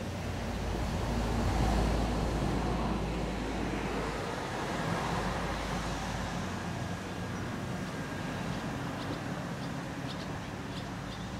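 Low rumble of road traffic, swelling about two seconds in and then easing to a steady background hum.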